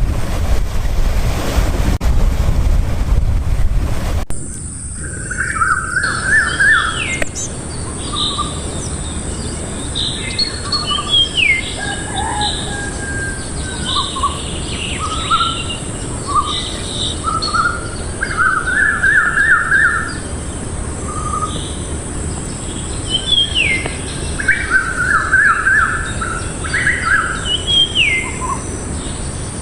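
A windy, surf-like rumble that cuts off abruptly about four seconds in. Then several birds chirp and call over a steady high hiss: repeated short trills and quick downward-sliding notes.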